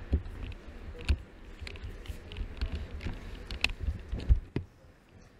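Irregular low thumps and light knocks, several a second, ending suddenly about four and a half seconds in.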